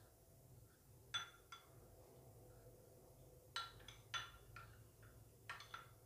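Spoon stirring flour batter in a ribbed glass bowl, clinking faintly against the glass several times at uneven intervals.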